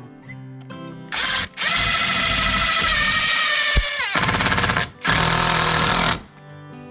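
Ridgid 18-volt cordless drill driving a screw into a plastic swivel mount base in three runs: a short burst about a second in, a longer run whose motor whine sags in pitch as the screw draws tight, and another short burst near the end. Quiet guitar background music plays under it.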